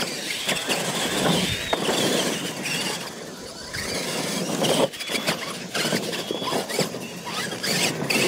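Radio-controlled scale monster trucks racing on dirt: the high whine of their electric motors and gears rises and falls over the crunch of tyres, with a few sharp knocks as they hit the ramps and land.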